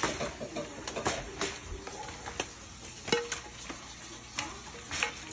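A spoon scraping and knocking against a pan as fried shrimp are pushed out onto aluminium foil: a handful of sharp, separate clicks and knocks a second or so apart.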